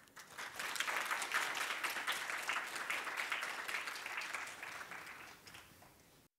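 Audience applauding at the end of a talk, starting about half a second in and slowly dying away, then the sound cuts off abruptly near the end.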